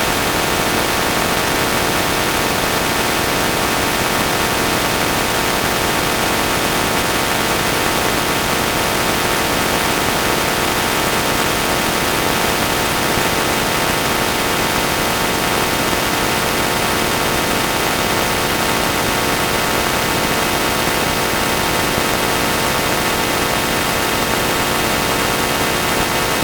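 Harsh, digitally distorted audio from a '4ormulator X' effect: a dense, steady wall of static-like noise with buzzing tones layered through it, unbroken throughout.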